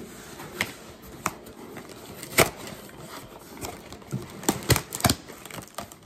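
Handling noise from a cardboard box being moved about close to the microphone: a scatter of sharp knocks and clicks, the loudest about two and a half seconds in and a quick cluster of them near the end.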